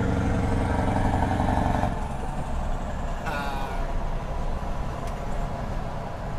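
Scania V8 truck engine running, loud and pitched for the first two seconds, then settling to a steady rumble. A short high sweeping sound cuts in about three seconds in.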